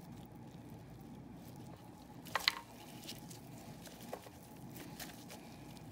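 Quiet handling sounds of scissors cutting raw chicken meat from a drumstick bone: one sharp click about two and a half seconds in and a couple of softer clicks, over a low steady room hum.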